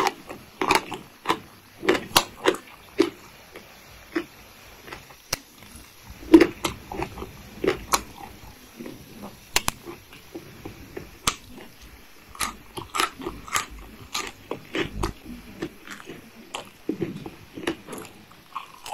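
Close-miked mouth sounds of eating spicy papaya salad, fresh acacia pennata shoots and breaded fried chicken: irregular wet chewing, lip smacks and sharp crisp crunches. A bite into the breaded chicken comes near the end.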